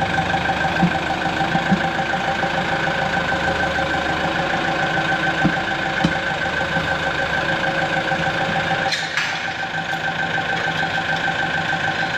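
Heavy diesel equipment engine idling steadily with a steady whine over it, and a couple of short knocks about halfway through.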